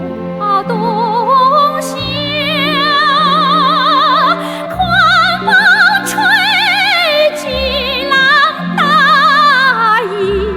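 A Chinese song in which a female voice sings long, held notes with a wide, operatic vibrato over slow orchestral accompaniment with sustained low strings.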